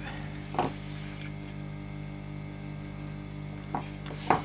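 Heat gun in its cool-down mode, its fan running on with a steady hum until the nozzle cools below 100 degrees and it cuts out. Two short clicks, about half a second in and near the end.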